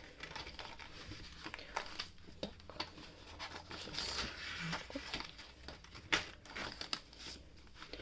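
Paper rustling and crinkling with scattered small clicks and taps as a spiral-bound colouring book printed on office paper is handled and its pages turned.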